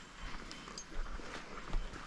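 Footsteps and light rustling through forest undergrowth, with scattered faint snaps and ticks.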